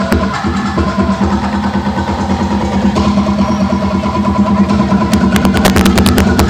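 Sahur-sahur percussion band playing a fast, driving drum rhythm over a steady low tone, with a flurry of sharp strikes near the end.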